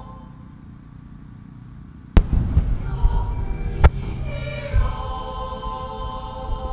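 Two sharp aerial firework bangs about a second and a half apart, the first the loudest, each followed by a low rolling rumble. Sustained background music fades under them and comes back after.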